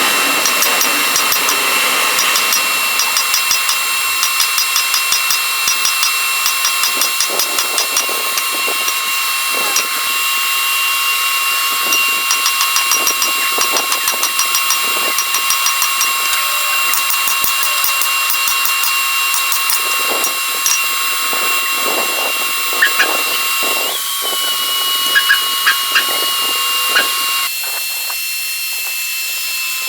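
Electric grinder running steadily with a high whine over a hiss, with scattered ticks. The hammer heads are being ground to shape. The whine steps up slightly near the end, then the sound thins out.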